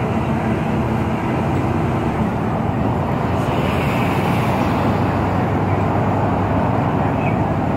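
Steady road and engine noise of a moving vehicle, heard from inside its cabin, with a brief rise in hiss about halfway through.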